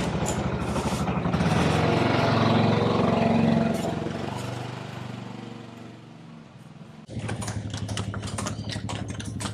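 A small vehicle engine passes close by, growing louder and then fading over several seconds. About seven seconds in the sound cuts to another small engine running steadily, with a string of light clicks.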